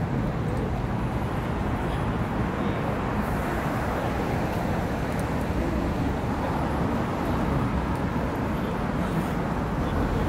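Steady road traffic on a busy city street: a continuous low rumble of passing vehicles with no single standout event.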